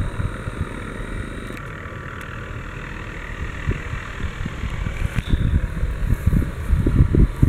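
MD 520N NOTAR helicopter hovering overhead, its steady turbine and rotor noise heard from a distance, with an uneven low rumble that grows heavier in the last couple of seconds.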